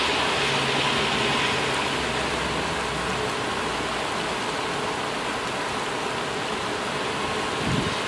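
Heavy rain pouring steadily onto the car park, roofs and cars. A vehicle's low rumble runs under it for the first few seconds and fades, and a brief low thump comes near the end.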